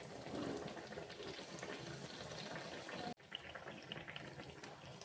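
Sel roti, a ring-shaped rice-flour batter bread, deep-frying in hot oil: a faint, steady sizzle full of fine crackles, briefly cut off about three seconds in.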